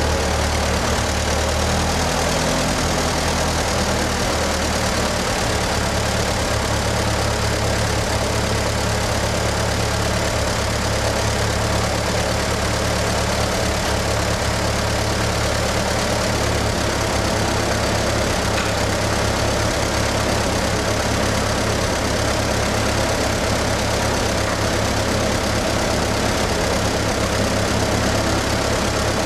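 Ferguson TE-A20 tractor's four-cylinder engine running steadily at about idle.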